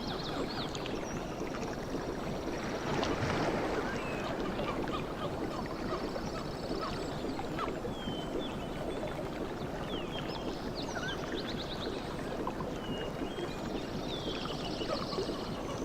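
Sea waves washing steadily, swelling about three seconds in, with many birds chirping over them and a high trill coming back every several seconds.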